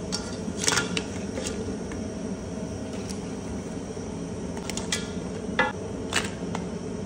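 Crabs being stirred with a wooden spatula in a pot of frying garlic: scattered clicks and knocks of shell and spatula against the aluminium pot over a steady sizzling hum.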